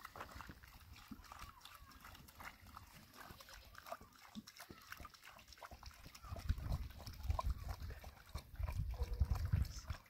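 Water pouring and glugging from a plastic jerrycan into a hollow in a heap of dry cement mix, with faint animal calls in the background.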